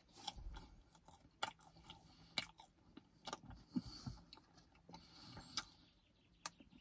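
A person biting into a small cake and chewing it close to the microphone, with a handful of short, sharp wet mouth clicks and smacks.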